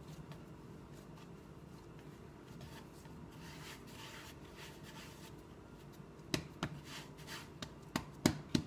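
Hands kneading a ball of dough on a floured wooden board: soft rubbing and squeezing, then several short sharp pats from about six seconds in as the dough is pressed down.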